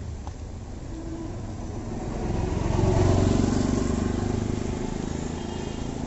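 A CNG auto-rickshaw drives past on a wet street. Its small engine and the hiss of its tyres swell to a peak about three seconds in, then fade as it moves away, over steady rain.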